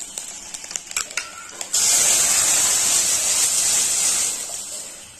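Curry leaves crackling faintly in hot coconut oil, then, less than two seconds in, a sudden loud sizzle as the ground rasam mixture is poured into the hot tempering oil. The sizzle fades over the next few seconds.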